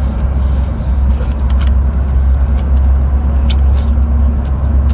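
A steady low drone, like an engine running, with scattered short sharp clicks over it.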